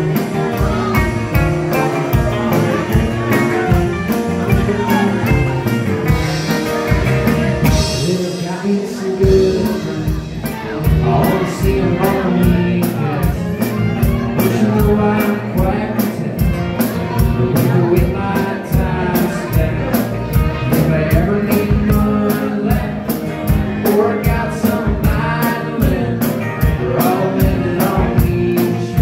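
Live band playing a song: strummed acoustic guitar, fiddle and drums keeping a steady beat, with a man singing.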